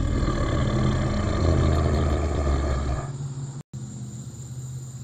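A deep, growling monster roar rising from the bushes, with a heavy low rumble. It lasts about three seconds and then cuts off.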